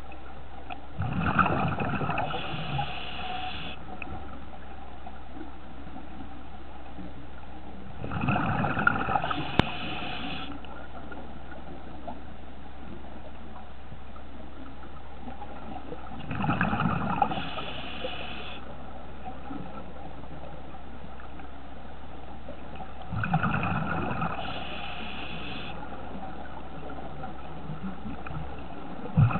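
Scuba diver breathing through a regulator underwater. Gurgling bursts of exhaled bubbles come about every seven seconds, each two to three seconds long, four times, with a fifth starting at the very end. A steady low hum runs underneath.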